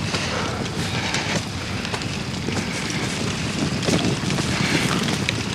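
Campfire burning with a steady rushing hiss and many small scattered crackles.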